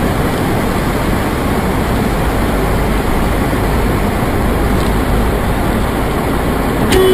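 Heavy rain and road water pounding a car as it drives along a flooded road, heard from inside the car as a loud, steady rush of noise.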